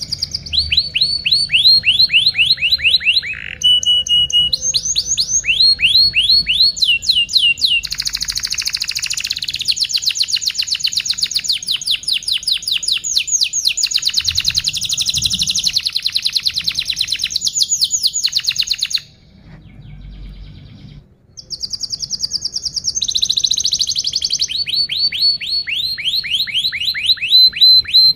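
Domestic canary singing a long, rapid song made of tours: fast runs of the same chirp repeated many times a second, switching to a new trill every few seconds, with a brief pause about two-thirds of the way through.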